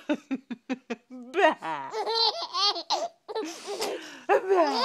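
Five-month-old baby laughing: first a quick run of short breathy gasps, then longer laughs that rise and fall in pitch.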